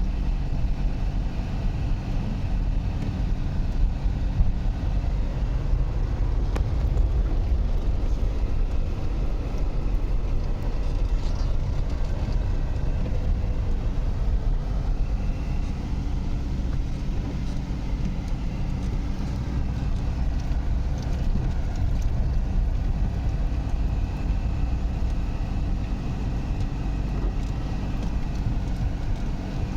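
A motor vehicle's engine running steadily: a constant low hum that holds an even pitch throughout.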